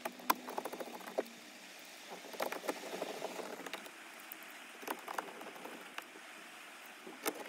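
Small clicks and knocks of a screwdriver and the plastic dash trim as screws are driven back into a car stereo's mounting frame, over a steady hiss. The sharpest click comes about a third of a second in, and a quick run of taps follows between two and three seconds in.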